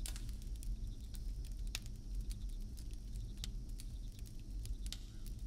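Campfire crackling: irregular sharp pops and snaps over a low steady rumble.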